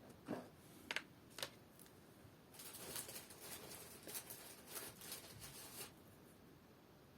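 Faint handling noises from arranging soap flowers in a foam-filled planter: a few light clicks in the first second and a half, then about three seconds of crinkly rustling.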